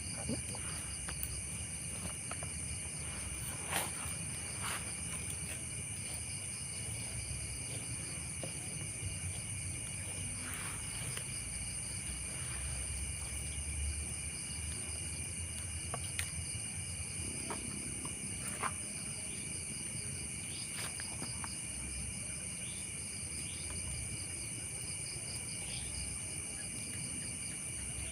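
A chorus of night insects, crickets among them, chirring steadily in several high-pitched bands, one with a fast pulsing trill. There is a low rumble underneath and a few sharp clicks.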